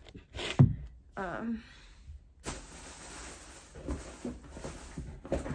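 A knock about half a second in as shoes are set down, then about three seconds of rustling from handling shoes in a plastic tote bag.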